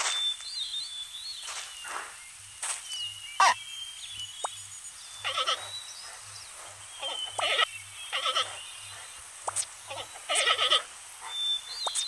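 A run of short bleating animal calls, about a dozen, with thin high chirps between them.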